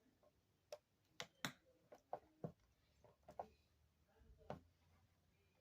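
Faint, irregular light clicks and taps, about eight in all, from small tools and phone parts being handled during an iPhone repair.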